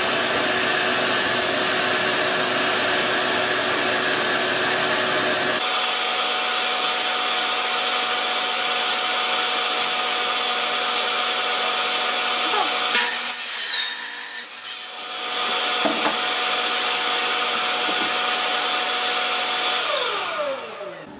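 DeWalt compound miter saw running and cutting through two 2x4 boards at once, with a steady motor whine. The sound dips about two-thirds through, then the saw runs again and winds down near the end.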